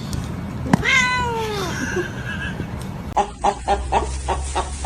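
A cat meowing once about a second in: a single drawn-out call that falls in pitch. Near the end a run of short, rapid repeated sounds plays over a low hum.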